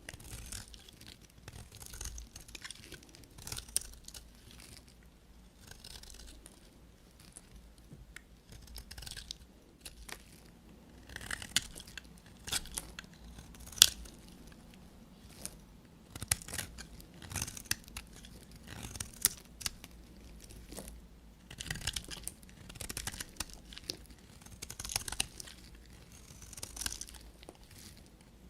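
A knife cutting through dry soap in a series of crisp, crackling cuts, roughly one a second, with one sharp snap about halfway through.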